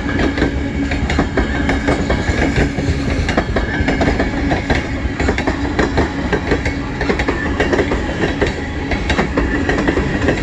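Freight train's open-top gondola cars rolling past close by, a steady rumble with wheels clacking over the rail joints in quick succession.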